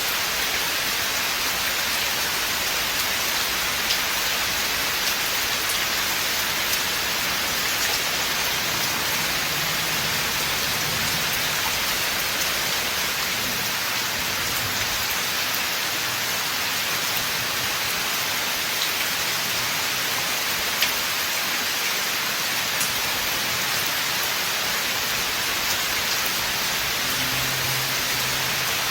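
Steady rain falling on a forest: a dense, even hiss of rain on leaves and ground, with scattered individual drops ticking close by.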